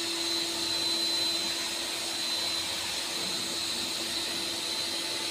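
Steady, even hiss with a faint constant hum and a thin high tone underneath; nothing starts or stops.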